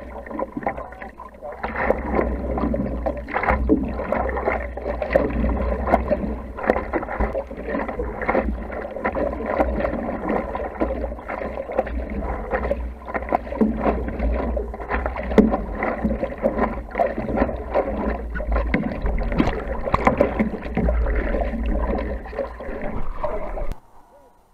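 Water splashing and sloshing against a stand-up paddleboard as it is paddled, picked up close by a camera mounted on the board, with a continuous low rumble underneath. It cuts off suddenly near the end.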